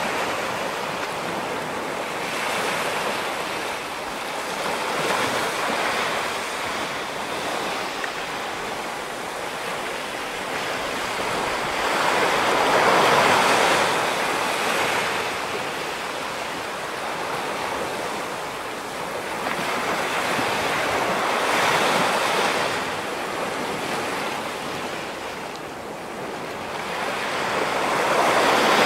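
Ocean surf breaking on a rocky shore: a continuous wash of water that swells up every seven to nine seconds as each wave comes in, then eases back.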